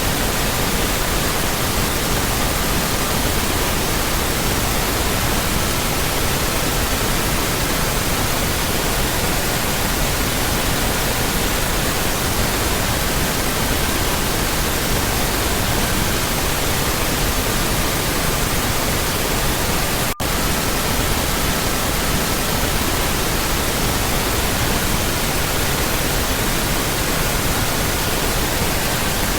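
Steady synthetic pink noise with faint pure sine tones in the 1,200–1,555 Hz range mixed underneath, the tones switching now and then. About twenty seconds in, the sound drops out for a split second.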